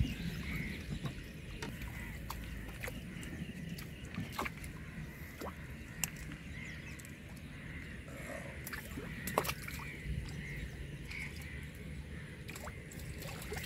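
Water splashing and sloshing as a man wades and moves inside a bamboo-screen fish trap, with scattered sharp splashes and knocks against the trap and canoe.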